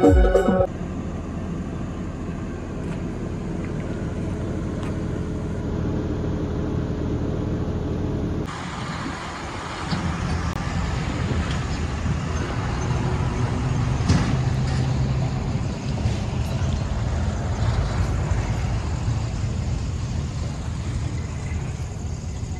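An engine running steadily at idle, a low even rumble. The sound changes abruptly about eight and a half seconds in, then carries on much the same.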